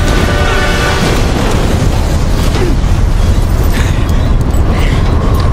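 Loud, steady rush of wind and engine noise through the open cargo door of an Airbus A400M military transport plane in flight, with dramatic film score playing over it.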